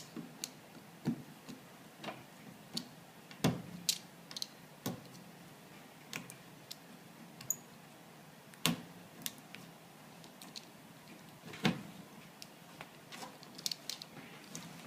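Irregular light clicks and taps from hands and a craft knife working on a vending machine's front panel and decal, with a few sharper knocks.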